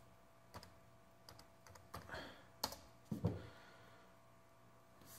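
Keystrokes on a laptop keyboard: a dozen or so quiet, irregular taps as a web address is typed into the browser.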